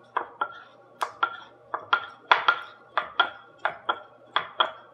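Small wooden dumpling rolling pin knocking against the floured mat and counter as dumpling skins are rolled out: a steady run of sharp wooden clacks, mostly in quick pairs, each with a short ring.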